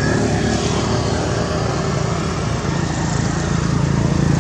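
A motor engine running steadily, getting a little louder near the end.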